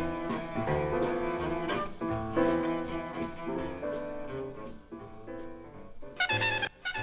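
Instrumental intro of a 1993 hip-hop track: a looped sample of sustained, low bowed-string-like notes with no drums. A brief brighter stab sounds about six seconds in.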